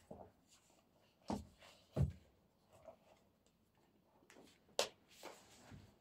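Small objects being handled and set down on a wooden desk, including a plastic jewellery organiser box: a few dull knocks, the loudest about two seconds in, a sharp click just before five seconds, and light rustling between.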